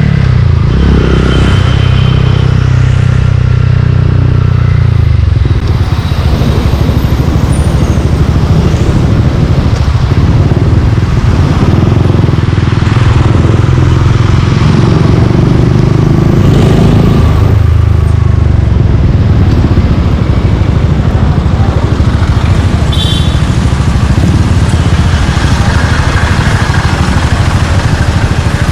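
Suzuki Gixxer 155's single-cylinder engine running through an aftermarket Yoshimura exhaust, with a loud, fast, pulsing exhaust note that rises and falls a few times with the throttle.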